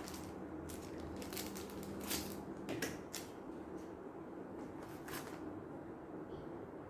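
Scattered short clicks and rustles from a keyboard and its packaging being handled, thinning out near the end, over a steady low hum.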